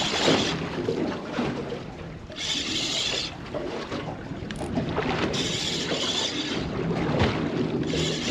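Fishing reel being wound in in bouts of about a second, every two and a half seconds or so, with a gritty whirr; its owner says the reel needs a service. Wind and water on the boat underneath.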